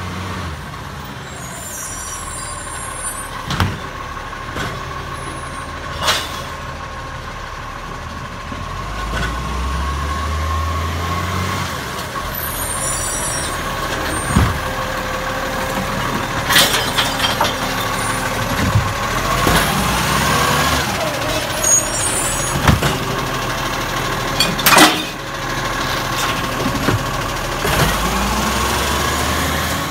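Iveco Acco garbage truck running at idle while its automated side-loader arm lifts and empties wheelie bins, with a steady whine under the engine. There are several sharp bangs of bins and the arm against the body, and short air-brake hisses.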